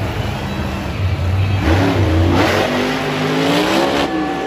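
Monster truck's supercharged V8 engine revving hard, its pitch climbing over about two seconds as the truck accelerates toward a jump and launches, then easing off near the end.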